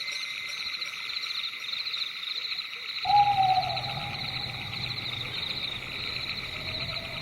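Night forest ambience: crickets trill steadily in a fast pulsing chorus. About three seconds in, an owl gives one drawn-out hoot that falls in pitch, and a low drone starts with it and carries on underneath.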